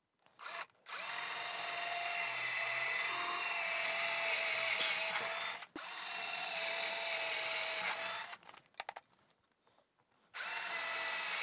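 12-volt Black & Decker cordless drill boring 1/4-inch pilot holes through hardboard fascia into the wood behind, with a steady motor whine. It runs for about five seconds, stops for a moment, runs about two seconds more, gives a few short blips of the trigger, then starts again near the end.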